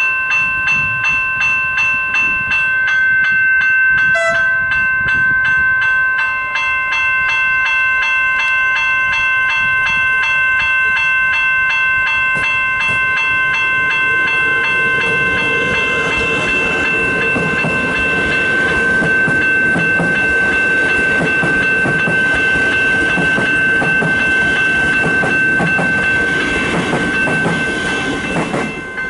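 Railway level-crossing warning bells ringing steadily while the boom gates are down. From about halfway, a suburban electric train approaches with a rising rumble and rattle, and it passes the crossing near the end.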